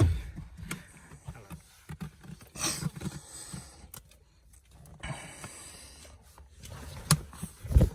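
Scattered light clicks and knocks of things being handled, with two brief rustling swishes and a couple of louder knocks near the end.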